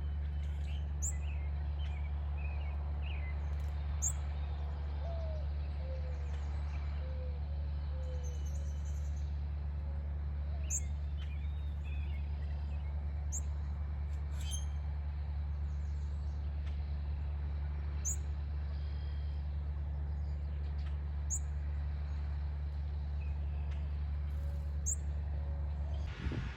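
Wild birds calling: a short, high, thin note repeated every few seconds, with scattered lower call phrases, over a steady low drone.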